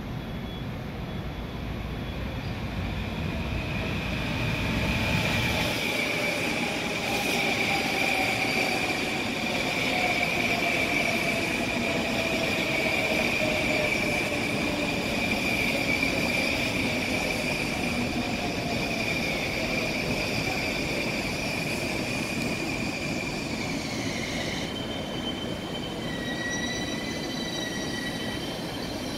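Long Island Rail Road electric multiple-unit train slowing along a station platform, with a steady high-pitched wheel and brake squeal and a fainter motor whine falling in pitch as it slows. Near the end the squeal breaks into a different pair of tones.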